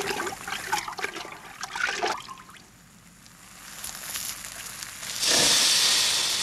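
Water splashing and trickling as a cloth is soaked in a metal bucket. About five seconds in comes a sudden loud hiss of steam as the damp cloth smothers a burning chip pan, fading slowly.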